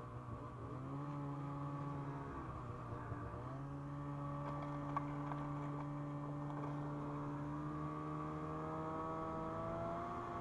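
Ski-Doo MXZ 600 Carb snowmobile's two-stroke twin engine running under throttle. Its pitch rises, drops back briefly about two and a half seconds in, then climbs again and rises slowly through the rest.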